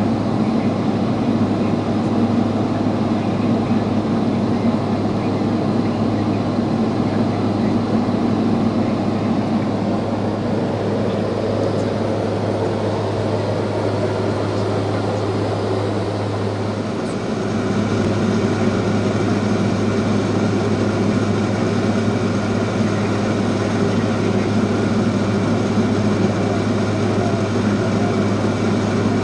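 Cabin drone of a Cessna P210 Silver Eagle's turboprop engine and propeller in cruise, steady, with a brief dip about halfway through after which a higher whine comes through more clearly.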